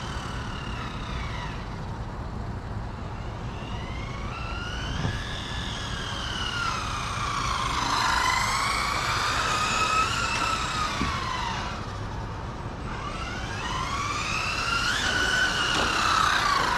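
Electric RC cars' brushless motors and drivetrains whining as they drive around on asphalt. The whine rises and falls in pitch in several long sweeps as they speed up, turn and slow, with a low rumble of tyres underneath.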